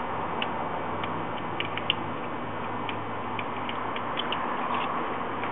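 Light, irregular clicks and ticks of small parts being handled, over a steady background hum.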